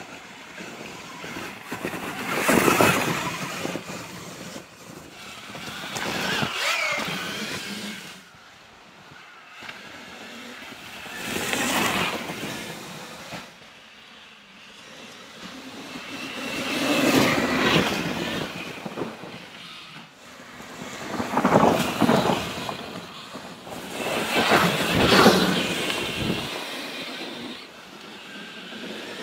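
Electric Sur-Ron dirt bikes, power-upgraded to 12,000 watts, accelerating hard along a dirt track. Their motor and chain whine rises and falls, mixed with tyre and wind noise, in about six swells.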